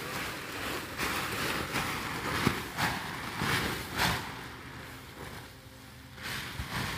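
An above-ground pool's base being dragged and pulled across the ground: a run of rough swishes, several close together in the first four seconds, then quieter, with one more near the end.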